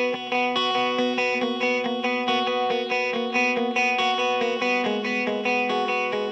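Background music: a guitar picking a quick, even pattern of notes, the chord changing about two-thirds of the way through.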